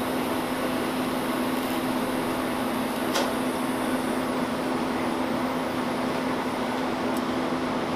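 A steady fan hum and hiss, with a single sharp click about three seconds in, around when the TIG torch's arc is shut off.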